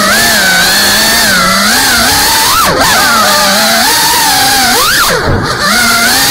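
FPV freestyle quadcopter's brushless motors whining up close, their pitch wandering up and down with the throttle. About five seconds in the pitch drops steeply and shoots back up as the throttle is cut and punched.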